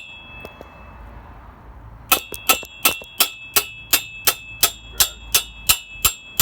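Metal hammer striking a BMX bike's bearing to drive it out. Ringing metallic clangs come about three a second, starting about two seconds in after a short pause in which the last strike's ring dies away.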